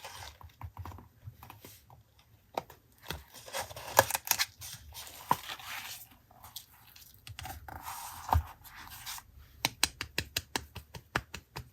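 Paper and stationery handled for a journal collage: irregular small taps and clicks mixed with rustling and scraping of paper, with a quick run of clicks near the end.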